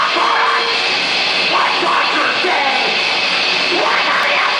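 Live rock band playing loudly, with electric guitars.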